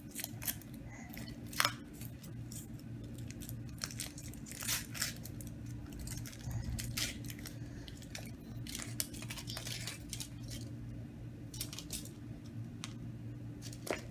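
Foil wrapper of a Kinder Surprise chocolate egg crinkling and tearing as it is peeled off by small hands, with scattered crackles and a few sharp clicks as the chocolate shell breaks and the plastic toy capsule is handled.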